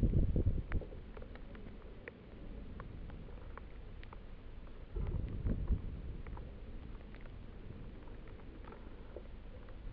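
Wind buffeting the microphone of a high-altitude balloon's payload capsule in flight: a low rumble in gusts, strongest at the start and again about five seconds in, with scattered faint clicks and ticks throughout.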